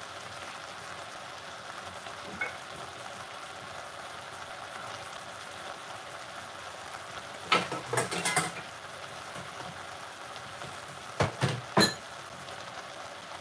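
Sliced vegetables sizzling steadily in an aluminium pot, with two short clusters of knocks, one past the middle and one near the end.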